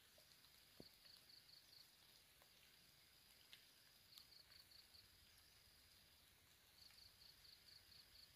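Faint, steady high-pitched insect trill, broken three times by a short run of quick pulsing chirps. A few faint clicks sound over it.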